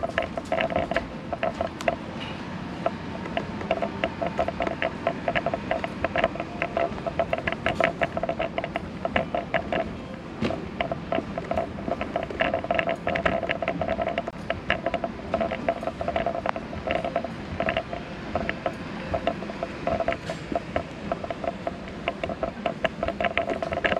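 Shop ambience: faint background music playing over the store speakers, with frequent small clicks and knocks throughout.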